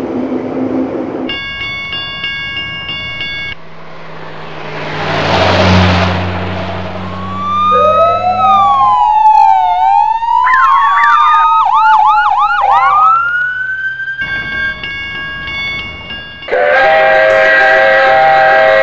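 Added toy-train sound effects in sequence: a stacked electronic crossing-warning tone sounding in on-off bursts, then a train rumbling past with a rising and falling whoosh. Next come several police sirens wailing, switching hi-lo and yelping fast at once, then the warning tone again. Near the end a steady multi-note steam whistle starts.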